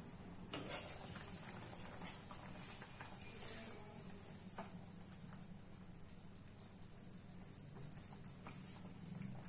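Potato and tomato curry simmering in a pan on low heat: a faint steady hiss, stronger from about half a second in, with scattered small bubbling pops and soft clicks of a spatula stirring through it.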